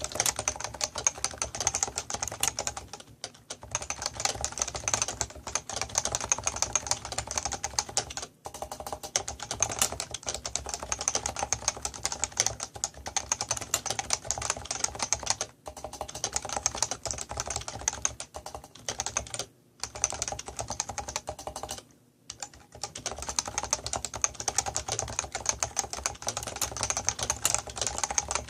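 Leopold FC660C keyboard with Topre electrostatic capacitive switches being typed on quickly and continuously, with a few short pauses between runs of keystrokes.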